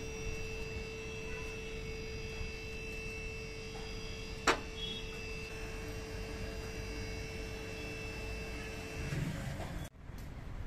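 Motor of a scissor car lift running steadily as it raises the car, a humming whine of fixed pitch, with one sharp click about halfway through; it stops about nine seconds in.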